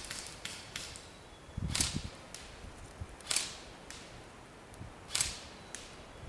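Airsoft guns firing: three sharp snapping shots about a second and a half to two seconds apart, among fainter ticks of more distant shots.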